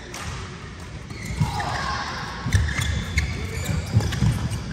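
Badminton rally: several sharp racket-on-shuttlecock hits from about halfway in, over thudding footsteps on the court floor.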